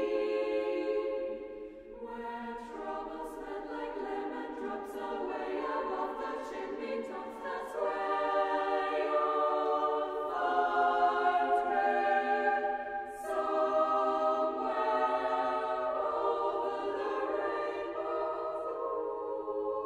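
Girls' choir singing a cappella in high voices, holding long chords that shift from one to the next, with a brief breath break about two seconds in.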